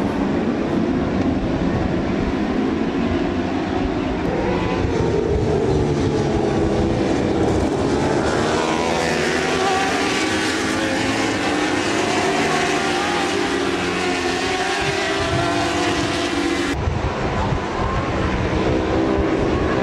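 Several racing motorcycle engines running hard, their pitches rising and falling and overlapping as they rev and pass.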